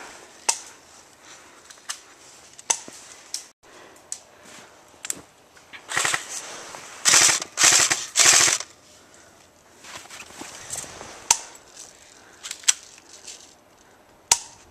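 Airsoft guns firing: scattered single shots, then several short full-auto bursts about six to eight seconds in, the loudest part, followed by a few more single shots.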